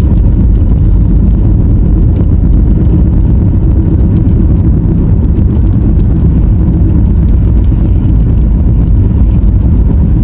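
Car driving: a steady, loud, low rumble of engine and road noise.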